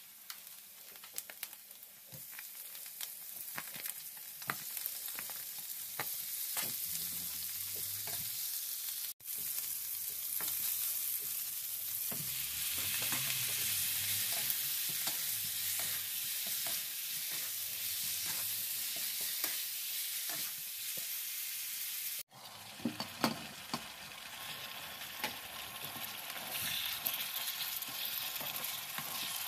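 Food sizzling in a nonstick frying pan while a wooden spatula stirs and scrapes, with many small clicks over a steady hiss. The pan holds chopped onion and garlic, then pieces of chicken and pork, then the adobo in its sauce. The sound cuts out briefly twice.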